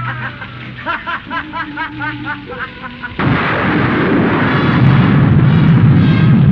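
A string of short, quick rising-and-falling pitched notes, then about three seconds in a sudden loud blast that runs on as a long, heavy rumble.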